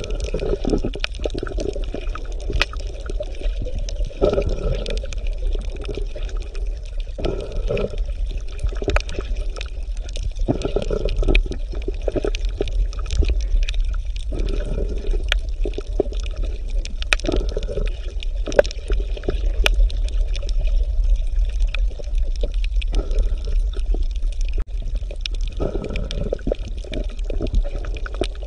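Underwater ambience: water bubbling and gurgling, coming and going every second or two over a steady low rumble, with scattered clicks.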